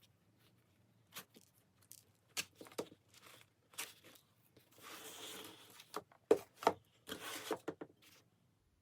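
Food packaging being handled and torn open: scattered sharp crackles and clicks, with a longer tearing sound about five seconds in and another about seven seconds in.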